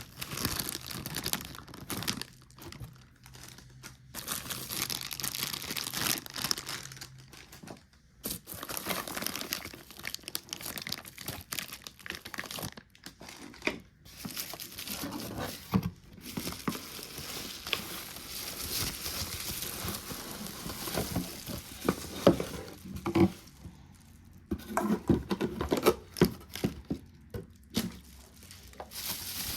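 Plastic packaging crinkling and rustling as nebulizer accessories are unwrapped, with scattered light clicks and knocks of plastic parts.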